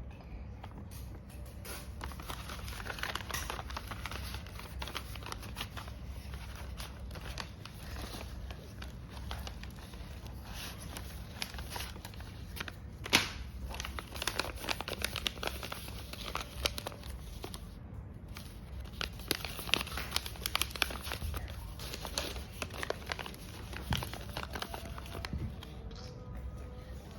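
Paper crinkling and rustling with some tearing as a homemade paper blind bag is handled and opened, with a sharp click about halfway through.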